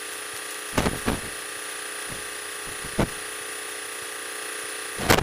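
Steady hum of a light airplane in flight, heard through the headset intercom recording, with four short clicks or pops.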